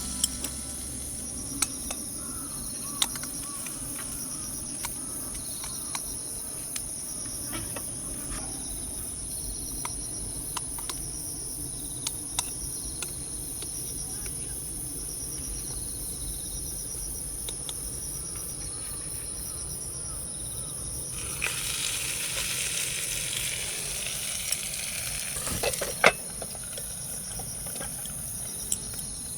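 Crickets trilling steadily, with scattered light clicks and knocks of cooking gear and a few seconds of sizzling from the hot sandwich maker about two-thirds of the way in, ending with a sharp knock.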